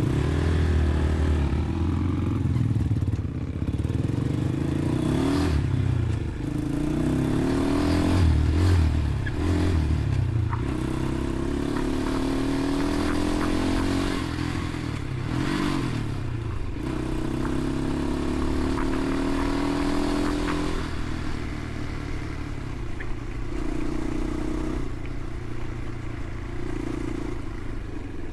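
Dirt bike engine riding a trail, its pitch rising and falling again and again as the throttle is opened and closed, then running steadier for the last several seconds. Clatter and knocks come from the bike going over rough ground.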